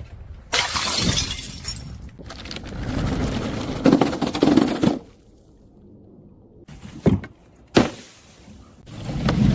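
Glass bottles shattering: a loud burst of breaking glass about half a second in, then a longer stretch of crunching glass, and two more sharp impacts around seven and eight seconds in.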